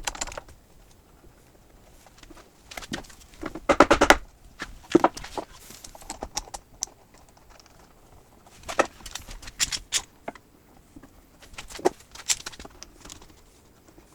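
Scattered knocks and clicks of clamps and wood being handled during a glue-up, coming in irregular clusters.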